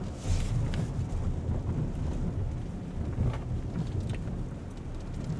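Low steady rumble of a car driving slowly, with wind noise and a few faint knocks.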